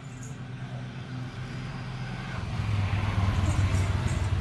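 A motor vehicle engine running steadily with a low hum that grows louder about two and a half seconds in.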